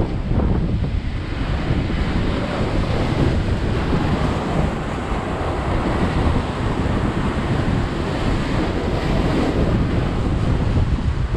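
Wind buffeting the microphone, with sea waves washing against the rocky shore below; a steady, loud rushing noise.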